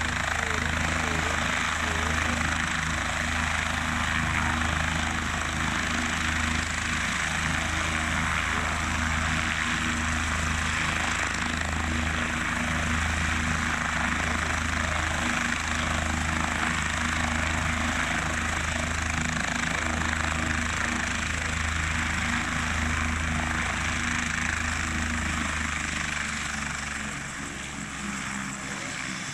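Bell OH-58D Kiowa Warrior helicopter running on the ground: its turbine engine gives a steady whine over the low, pulsing beat of the turning main rotor. The rotor beat fades about 26 seconds in.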